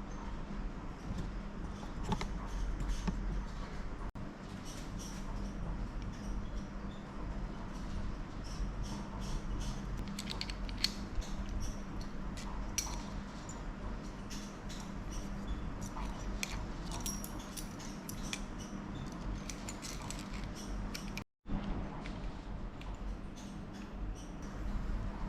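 Small irregular metallic clicks, taps and rattles of hand tools and bike frame parts being handled during a linkage bearing replacement, over a steady low hum. The sound cuts out briefly near the end.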